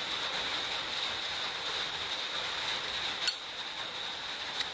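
Silver-plated Zippo lighter's hinged lid giving one sharp metallic click about three seconds in and a fainter click near the end, over a steady hiss with a faint high whine.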